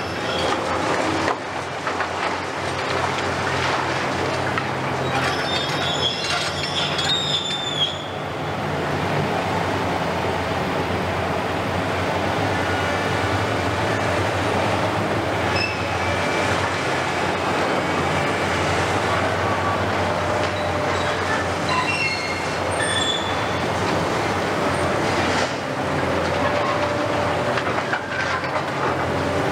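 Hitachi demolition excavators wrecking a building: a steady diesel engine drone with the crunch of breaking masonry. High metallic screeches come about five to eight seconds in, with shorter squeaks later.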